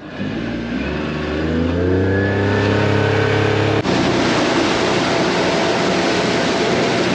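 Boat motor pulling away, its pitch rising steadily over about four seconds. After an abrupt change it runs steadily at speed under a loud rush of water and wind.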